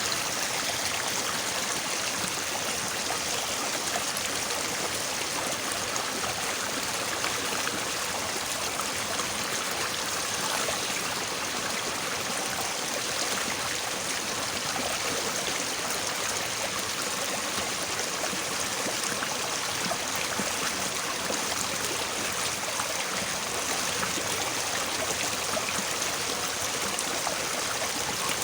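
Small, fairly swift stream babbling steadily, a continuous rush of flowing water with no breaks.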